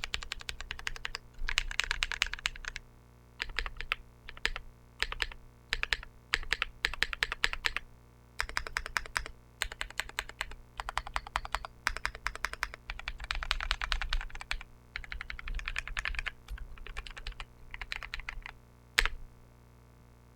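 Mechanical keyboard being typed on: a Percent Studio Skog-Reboot with Drop Holy Panda tactile switches on 62 g SPRiT springs and GMK Godspeed keycaps. The keys clack in quick runs with short pauses between, and there is one sharper, louder keystroke near the end.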